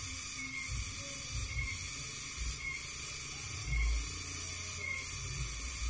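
Steady high-pitched hiss that pulses faintly about once a second, with low wind rumble on the microphone.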